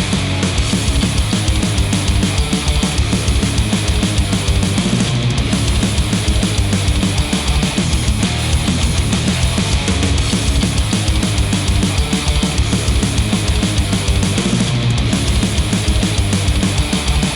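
Heavy rock music with a fast, driving drum beat, played back through HiFiMAN HE1000 V2 planar magnetic headphones and picked up by microphones.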